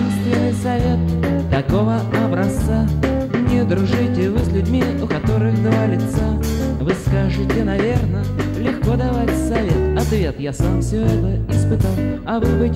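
Rock band playing a song on a 1980s amateur tape recording: electric guitars over bass guitar and drums, with a steady beat.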